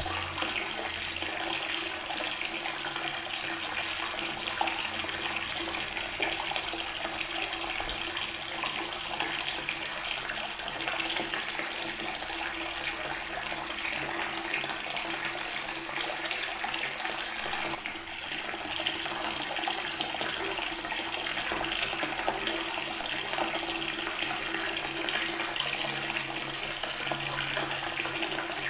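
Water tap running steadily, its stream splashing onto natural stone.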